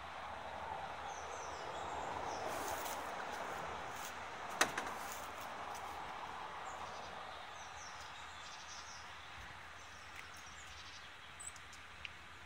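Outdoor background noise that swells and then fades over the first several seconds, with faint high bird chirps on and off. A single sharp click comes about four and a half seconds in, and a light click near the end as a keypad button on the vending machine is pressed.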